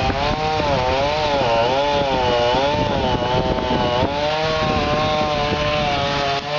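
Two-stroke chainsaw running hard, its pitch dipping and recovering again and again as it cuts through wood. A low steady hum joins about two-thirds of the way through.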